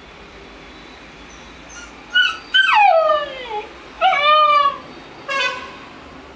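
A puppy howling with its head raised: a short yip, then a long call that slides down in pitch, a shorter arching call, and a brief last call.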